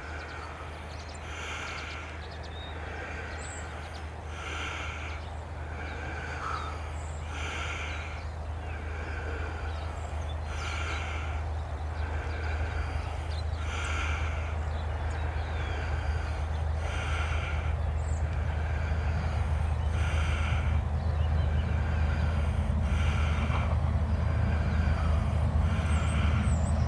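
Diesel locomotive of a coal train approaching, its low engine drone growing steadily louder. A higher tone repeats over it about every second and a half.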